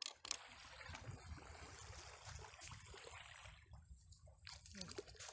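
Shallow sea water trickling and lapping at the shoreline, faint and steady, with two sharp knocks right at the start.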